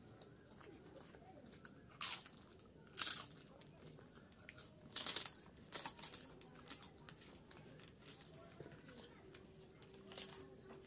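A crisp papad being crushed and broken up by hand over a plate of rice: a run of sharp crackles and crunches, the loudest about two, three and five seconds in, with lighter crackling between.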